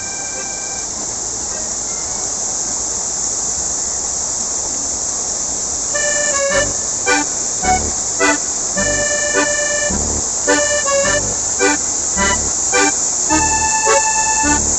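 Steady rushing roar of a waterfall. About six seconds in, background music with a held melody and a regular beat comes in over it.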